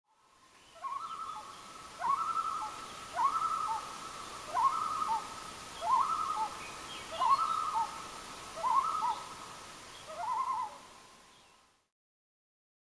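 Common loon yodelling: about eight evenly repeated phrases, each a rising swoop followed by a couple of wavering notes. The call fades in at the start and fades out near the end.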